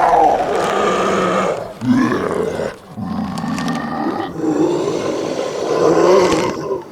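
Werewolf roar sound effect: a long roar fading out, a short roar about two seconds in, then another long roar that dies away near the end.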